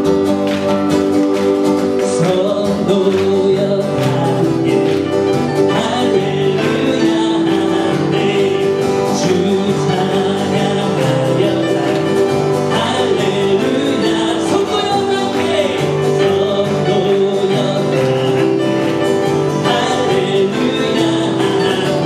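Worship song: an acoustic guitar strummed steadily, with singing over it.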